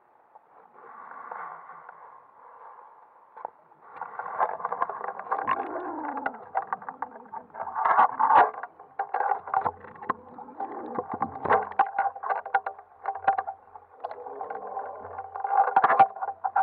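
Muffled water noise and sharp knocks picked up underwater by a camera in its housing as it moves through the water, with frequent clicks and a louder rush a few seconds in.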